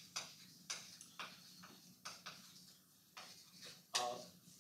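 Chalk writing on a blackboard: a string of sharp, uneven taps and short scrapes as letters are written, about two or three a second, with a louder stroke about four seconds in.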